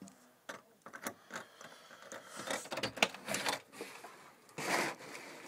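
Scattered light clicks and knocks, with a few short rustling noises in the second half.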